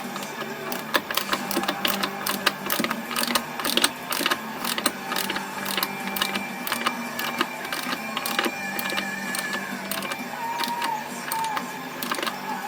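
Socket ratchet clicking in quick, uneven runs as a stud is wound into the engine casing using two nuts locked against each other, with a steady low hum underneath.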